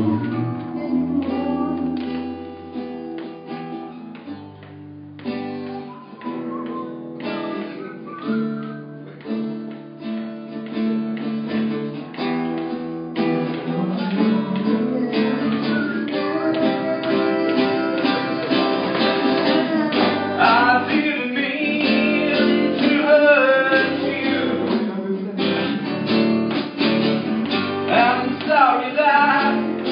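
Live acoustic guitar playing an instrumental passage of a slow song, with low bass notes under the chords. About halfway through, a louder, wavering melody line joins above the guitar.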